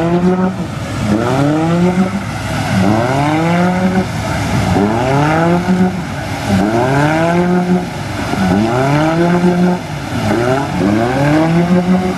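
Suzuki Samurai engine revving hard in repeated surges as the 4x4 churns through deep mud, its pitch climbing and dropping back about once a second as the driver works the throttle.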